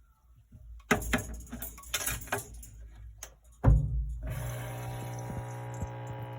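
Electrolux LT09E top-load washing machine: a run of rattling knocks and clicks, then a loud thump, after which a steady low motor hum starts and holds.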